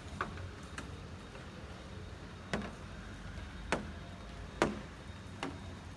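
A handful of sharp knocks or clacks at irregular intervals, about six in all, the loudest a little past the middle, over a steady low background rumble.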